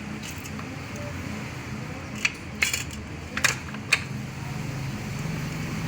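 A few short metallic clinks of tools and engine parts being handled, clustered about two to four seconds in, over a steady low hum.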